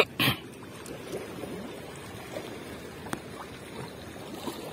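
Gentle splashing and trickling of water as a cast net is drawn out of the river by its rope, with faint small ticks through it. A short loud burst of noise comes just after the start.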